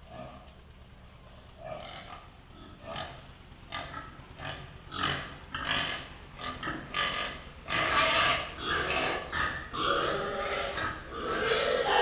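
Domestic pigs in concrete pens grunting and calling: short calls come one after another from about two seconds in, growing louder and more frequent, thickest near the end.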